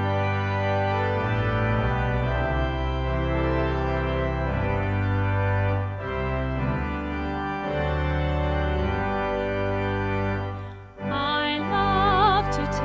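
Organ playing sustained chords that change every second or two. About eleven seconds in it breaks off briefly, and a new passage begins with a wavering melody over held chords.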